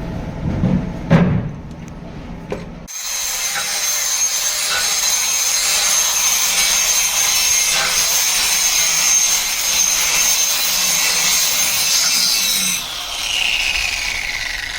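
A few knocks, then an electric grinder starts abruptly and grinds with a steady high whine over a rasping hiss. Near the end it winds down, the whine falling in pitch.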